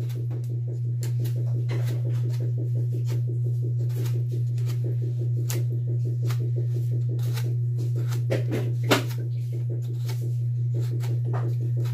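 Kitchen knife scraping and chipping at the splintered stub of a wooden broom handle, chipping out the piece that broke off inside the broom: a run of short, irregular scrapes and clicks. A steady low hum runs underneath.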